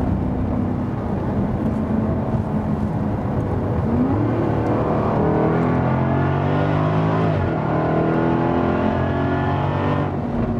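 Jaguar F-TYPE SVR's supercharged 5.0-litre V8 and exhaust pulling under acceleration: the engine note climbs in pitch, with a gear change about seven and a half seconds in.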